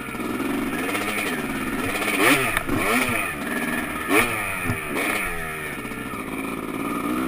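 Dirt bike engine heard up close from on board, revving up and down over and over as it is ridden over rough ground, its pitch rising and falling with each throttle opening and shift. Two sharp knocks stand out, about two and four seconds in.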